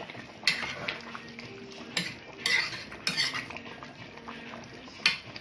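A metal utensil clinking against a cooking pot: about five sharp clinks spread over a few seconds, the last near the end.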